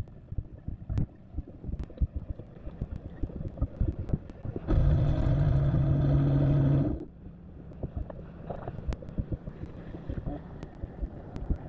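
Wind buffeting the bow microphone of a slow-moving 21-foot Crooked pilothouse motorboat. About five seconds in, a loud steady mechanical hum starts and cuts off sharply two seconds later.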